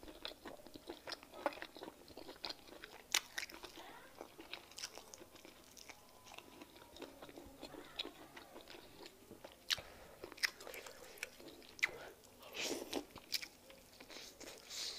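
Close-miked eating: chewing, smacking and sharp wet mouth clicks as soup-soaked meat is torn from the bone and bitten, with scattered louder smacks.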